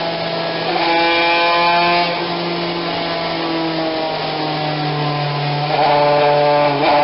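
TM two-stroke kart engine with a replated cylinder running on a dyno, held at a fairly steady speed, with two short louder pushes, about a second in and near the end.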